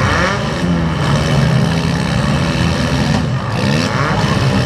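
Demolition derby car engines running and revving loudly, with music mixed in.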